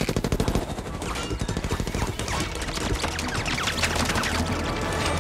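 Cartoon sound effects of dumplings being fired off one after another: a rapid, machine-gun-like volley of short whooshes and hits.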